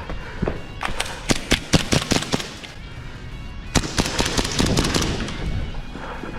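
Airsoft guns firing in rapid strings of sharp cracks: one run of shots about a second in, then a denser burst near four seconds.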